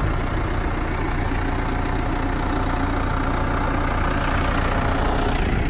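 Caterpillar tractor's diesel engine idling steadily.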